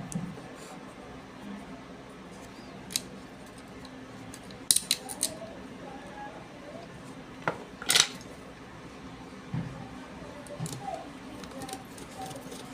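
Scattered sharp clicks and clinks of small metal parts and a screwdriver as screws with washers are fitted into a hair trimmer's body, the loudest pair about eight seconds in.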